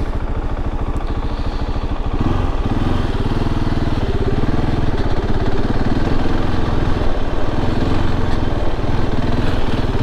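KTM 690 Enduro R's single-cylinder engine running at low revs, then opening up about two seconds in and pulling steadily under load through deep sand.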